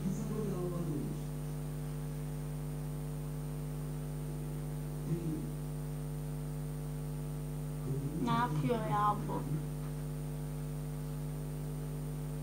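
Steady electrical hum with many overtones, unchanging throughout. A short voice-like pitched sound rises and falls about eight seconds in.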